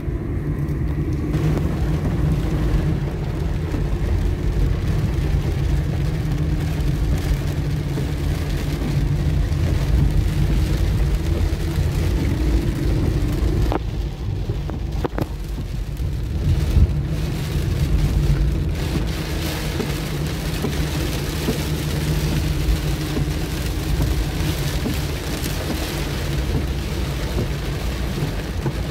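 Car engine and tyre noise heard from inside the cabin while driving, a steady low drone. In the second half rain on the roof and windshield adds a steady hiss over it.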